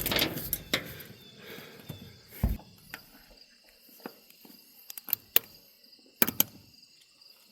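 Scattered clicks and knocks of tools and parts being handled, with a dull thump about two and a half seconds in, during work on a garden tractor wheel.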